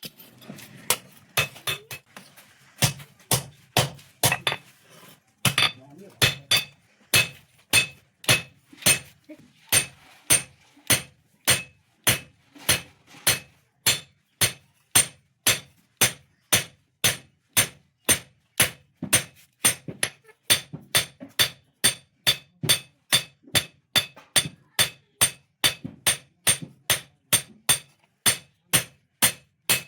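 A blacksmith's hand hammer striking steel on an anvil in a steady rhythm of about two blows a second, each with a bright metallic ring, while forging a sickle blade.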